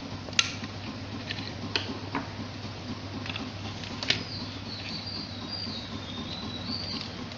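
Plastic tape reels being handled and fitted on a reel-to-reel tape recorder: a few sharp clicks and knocks over a steady low hum. From about four seconds in, a thin, wavering high squeak joins them.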